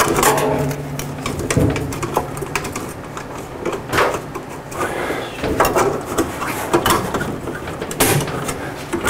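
Sheet-metal junction box of a recessed can-light housing being handled with gloved hands, its snap-on cover and cables pressed into place: scattered sharp metal clicks and knocks with rubbing and rattling between them.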